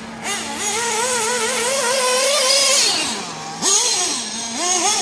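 Tamiya 801 XT 1/8-scale nitro truggy's small glow engine revving on and off the throttle: a high whine that wavers up and down, drops away about three seconds in, then picks up again, with a steady lower hum underneath.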